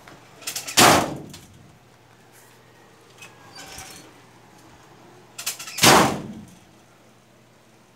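A screen door slams shut twice, about five seconds apart. Each bang has a quick click just before it and a short ring after it, the sign of a worn door closer that no longer lets the door close slowly.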